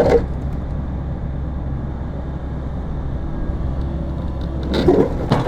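Diesel engine of a piece of heavy construction equipment running steadily with a low drone, with a brief louder burst of sound near the end.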